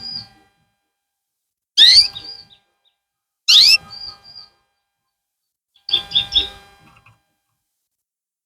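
Canary calling in short, loud bursts: sharp upward-sweeping chirps about every one and a half to two seconds, then a quick run of three notes about six seconds in, after which it goes silent.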